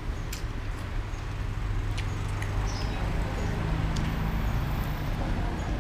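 Steady low engine rumble of road traffic, with a few light clicks of a metal spoon against a ceramic soup bowl.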